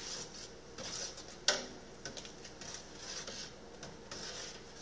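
Spoon stirring a stockpot of boiling wort while hop pellets are added from a bag: irregular scraping and rustling, with one sharp knock about a second and a half in.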